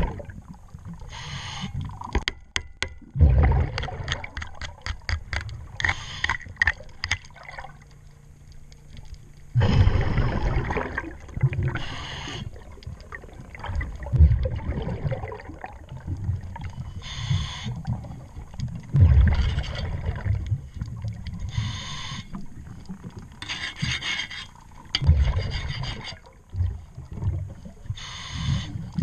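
Underwater sounds of a diver cleaning a boat's running gear by hand: scraping and a run of rapid clicks against the shaft strut and bronze propeller. Rushing scuba-regulator bubble bursts come every two to three seconds.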